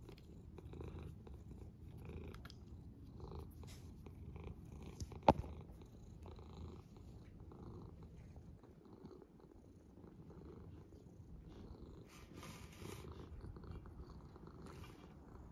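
Domestic cat purring steadily, with one sharp click about five seconds in.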